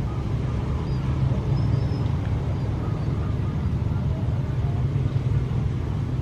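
Steady low engine rumble, even and unbroken.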